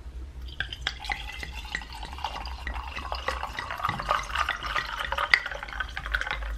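Moscato wine poured from a bottle into a stemless wine glass, splashing and gurgling steadily as the glass fills. It starts about half a second in.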